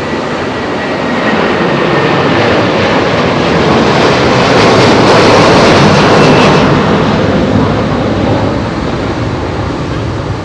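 Airbus C295M twin-turboprop transport passing close by, its engines and propellers rising to a peak about five seconds in and then fading as it moves away.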